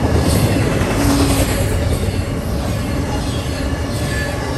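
Long freight train rolling past: loud, steady rumble of rail cars and wheels on the track.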